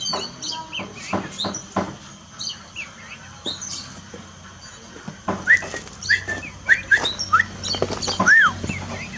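Songbird singing in a fast, varied string of short chirps, clicks and whistled notes. About halfway in it switches to a run of sharp rising whistles, with one longer arched whistle near the end.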